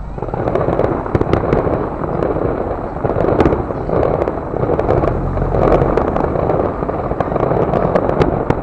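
Fireworks display: a quick run of aerial shell bursts going off one after another, with rolling booms that swell and fade about once a second and many sharp crackling pops over them.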